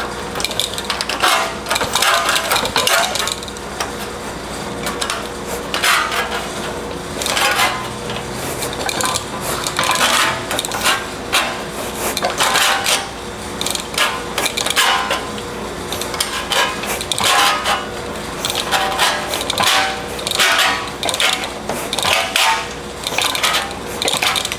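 Hand-operated sheet-metal shrinker gathering the edge of a steel fender panel, its jaws clacking shut in repeated sharp metallic strikes, often in quick pairs, about one to two a second.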